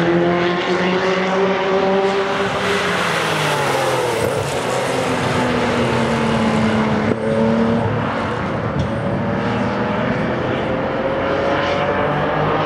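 Several historic sports racing car engines running hard on the circuit at once, their notes rising and falling as the cars accelerate, change gear and pass.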